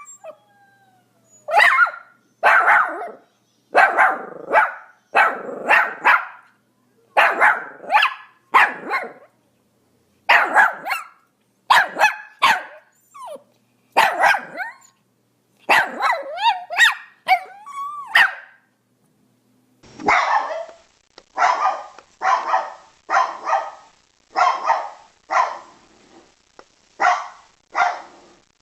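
Dogs barking in two separate recordings. First a dog barks in pairs and short runs, some barks bending into yelps. About twenty seconds in, a second recording starts: a dog barking evenly, a little over one bark a second.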